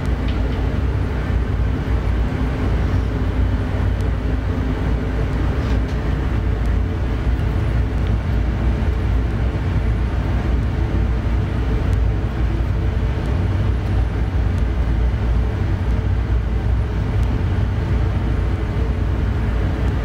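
Steady low rumbling noise with a faint hum.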